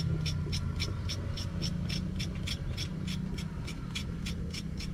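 Kitchen knife blade scraping the skin off a raw carrot, in quick even strokes, about three to four a second, over a steady low hum.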